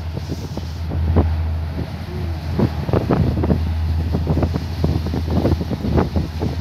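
Wind buffeting the microphone in irregular gusts on the open deck of a moving search-and-rescue ship, over the ship's steady low engine hum.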